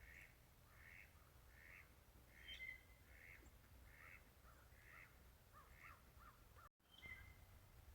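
Faint bird calls repeated over and over, roughly one every three-quarters of a second, with a thin whistled note from another bird twice.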